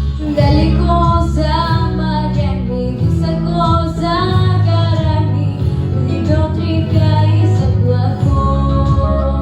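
A female voice singing a song melody over instrumental accompaniment with a steady bass line; the voice comes in about half a second in.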